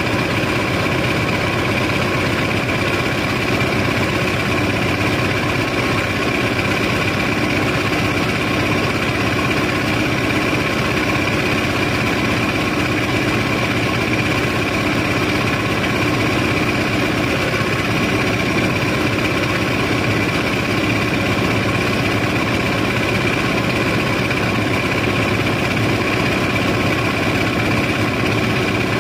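Steady drone of the barge's engine-driven sand-unloading machinery running, with a constant high whine over it.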